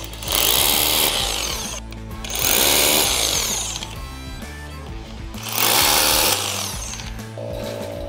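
Cordless hammer drill boring into a concrete floor in three bursts of about a second each, making holes for sleeve anchors that hold down steel sawmill bunks. Background music runs underneath.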